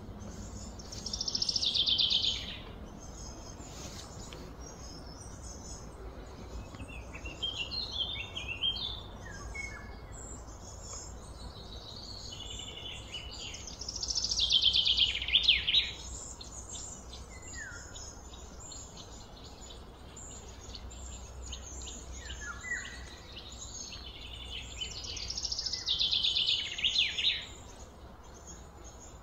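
A bird singing repeated high, falling phrases, each about one to two seconds long. The loudest phrases come near the start, about midway and near the end, with shorter chirps between. A steady low background rumble runs underneath.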